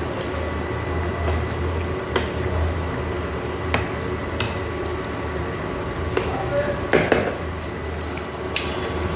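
A spatula stirring a thick, simmering curry in a metal pan: wet stirring sounds with scattered sharp knocks against the pan, the strongest about seven seconds in. A steady low hum runs underneath.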